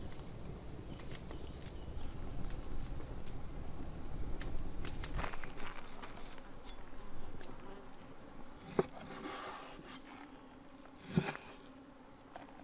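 A cleaver cutting raw pork tenderloin on a wooden cutting board: quiet strokes through the meat, then two knocks of the blade on the board in the second half, the second louder.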